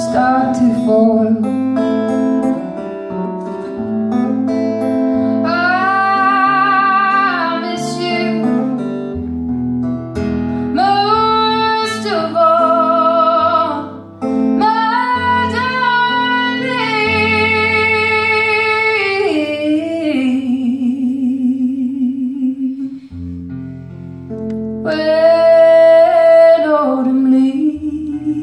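A woman singing long held notes with vibrato over her own acoustic guitar. The guitar carries on alone in the short gaps between the sung phrases.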